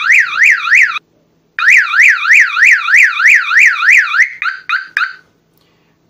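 12-volt vehicle alarm siren, set off by breaking the laser beam on its LDR light sensor, warbling loudly up and down about three times a second. It drops out about a second in, starts again half a second later, then changes to a few short beeps and stops about five seconds in.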